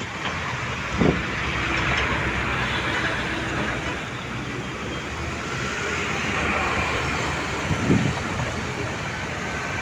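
Steady road traffic: vehicles passing, with a continuous hum of engines and tyres.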